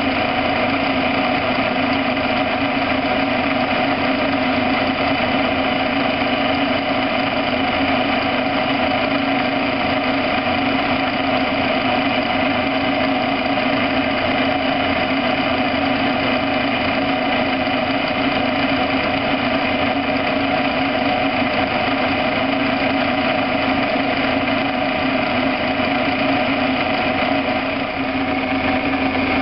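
Laboratory froth flotation machine running at low air rate: its motor and impeller spin steadily in the ore slurry, making an even mechanical hum with several fixed tones. The level dips slightly near the end.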